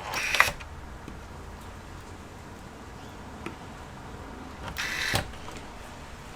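Small electric screwdriver whirring twice, each run about half a second and ending abruptly. The second run comes near the end.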